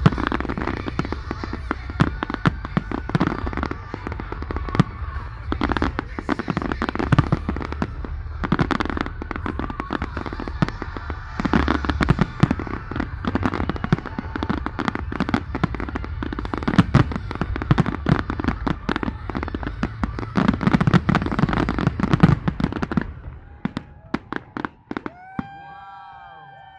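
Fireworks going off in a dense, rapid barrage of bangs and crackles, which thins out to a few scattered pops about 23 seconds in.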